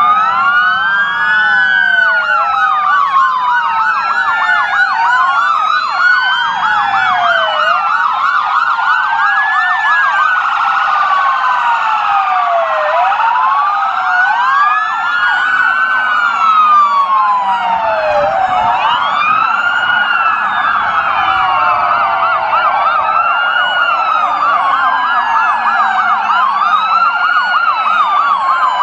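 Several police car sirens wailing at once, their rising and falling tones out of step with each other, with faint traffic noise beneath.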